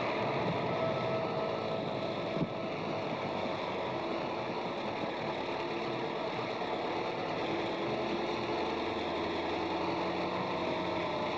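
A motor vehicle engine running steadily, with a faint steady hum over a noisy rush.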